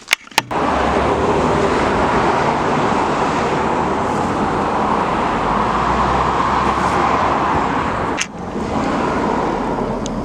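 A steady, loud rushing noise, with a few sharp clicks at the very start and a brief dip about eight seconds in.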